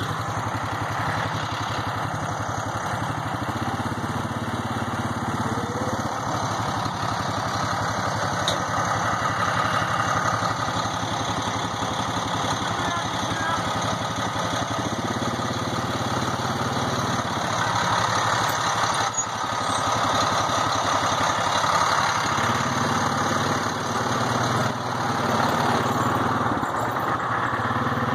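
An engine running steadily, its note rising a little now and then.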